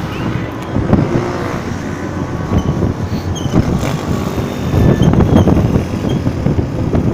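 Car engines and road noise heard from a moving car, a steady loud rumble.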